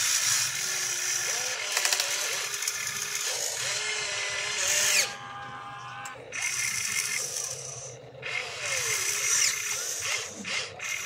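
Electric motors of a radio-controlled model excavator whining as it moves its arm and swings, the pitch sliding up and down with each movement and cutting out briefly about five and eight seconds in.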